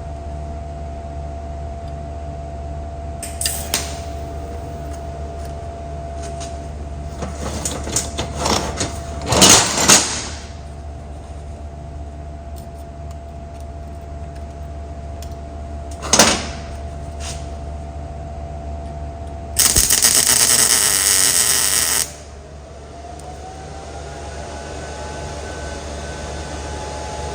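Welder arc crackling in short bursts as a twisted-off bolt is welded on to heat it: heating, then cooling, loosens the seized bolt. The longest burst, about two and a half seconds, comes near the end, over a steady shop hum.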